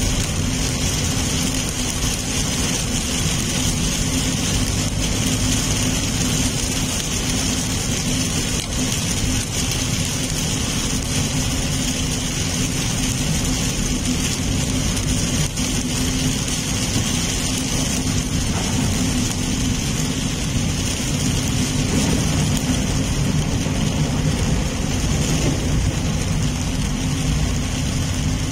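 Heavy rain on a moving car and its tyres on the wet road, heard from inside the cabin: a steady noise over a low rumble.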